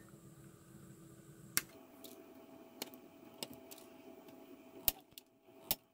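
Several short, sharp clicks from flush cutters worked against a soldered circuit board, snipping off a solder blob, over a faint steady hum.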